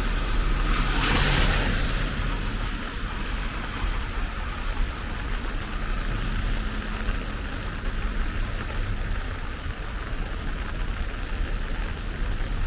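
Steady rain hiss over a low, continuous traffic rumble. About a second in, a louder hiss swells and fades.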